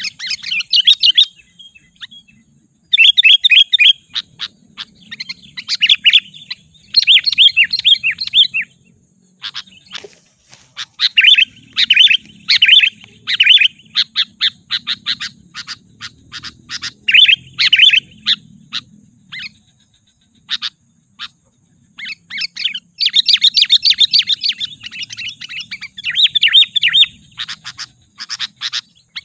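Sooty-headed bulbul singing: repeated phrases of rapid chattering notes, each lasting a second or two, separated by short pauses. A single sharp click about ten seconds in.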